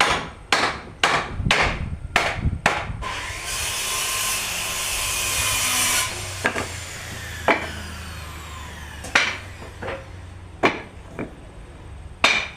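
Hammer blows on wood, six quick strikes about half a second apart, as door-frame parts are knocked together. A power tool then runs for about three seconds, stops and winds down with a falling whine, followed by more spaced single hammer knocks.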